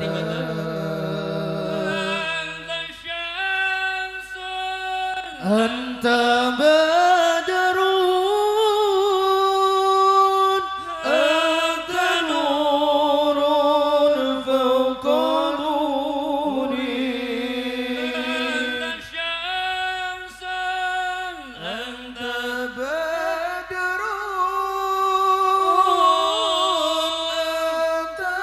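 A single voice chanting a sholawat, the Islamic praise of the Prophet Muhammad, in slow, drawn-out melismatic phrases. The long held notes slide up and down between pitches, with short breaths between phrases.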